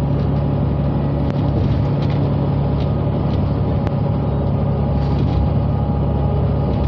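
Bus engine running at steady cruising speed with constant road and tyre noise, heard from inside the passenger cabin as a low hum.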